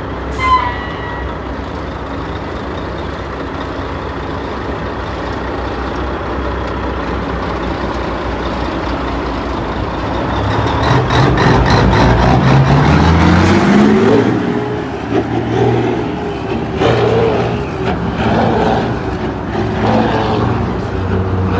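Heavy truck's diesel engine running steadily, then revving with a rising pitch from about ten seconds in, its speed dropping and climbing again several times. A brief sharp sound comes just after the start.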